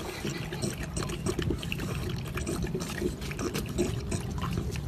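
English bulldog licking and slurping water at the spout of a drinking fountain, with water trickling; a run of irregular wet lapping clicks.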